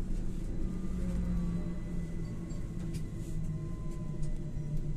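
LAZ E301D1 trolleybus driving along, heard from inside the cabin: a steady low rumble of the running bus with a faint electric whine that slowly falls in pitch.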